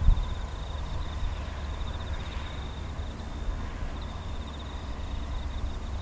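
Outdoor ambience: a low rumble that swells in gusts, with insects trilling at a steady high pitch.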